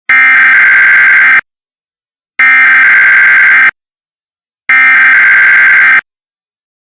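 Emergency Alert System SAME header: three identical bursts of data tones, each about a second and a quarter long with about a second's pause between, the digital code that opens an EAS alert.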